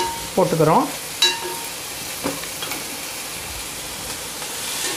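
Boiled black chickpeas with onions sizzling in a little oil in a black kadai, stirred with a perforated steel ladle. The ladle scrapes and clinks against the pan, with a sharp ringing clink about a second in and another softer knock a second later.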